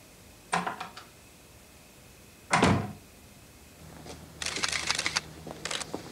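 A sharp crack about half a second in, then a heavy knock, the loudest sound, a couple of seconds later. From about four seconds on comes a fast run of clicks and clatter over a low hum.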